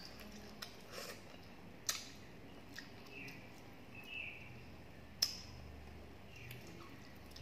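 A person eating watery rice by hand: wet mouth sounds of chewing and lip smacks, with a few sharp clicks, the loudest about two seconds in and just past five seconds.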